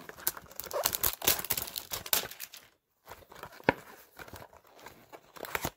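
Packaging of a Pokémon trading-card mystery box crinkling and tearing as it is opened by hand. The crackling is dense at first, breaks off briefly about halfway, then goes on more sparsely with one sharp snap.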